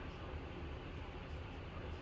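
Steady low hum and hiss of background room noise, with a faint click about a second in.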